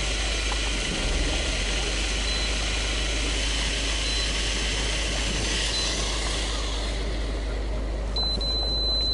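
Fishing boat's engine idling under a steady wash of wind and sea noise. A short high beep sounds three times, then a longer steady high beep, briefly broken, near the end.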